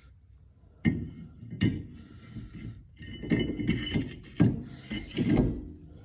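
Metal knocks, clinks and scraping as a two-piece floating brake rotor is slid onto the wheel hub and lined up, with about three sharp knocks among shorter clattering.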